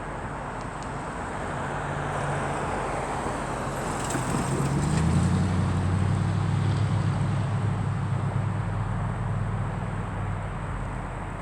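A road vehicle passing by: engine hum and road noise grow louder, peak about halfway through, then fade.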